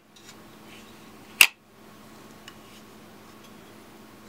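A single sharp click of hard plastic parts of a knife sharpening system's clamp carriage knocking together as they are handled and fitted, about one and a half seconds in, followed by a faint tick about a second later.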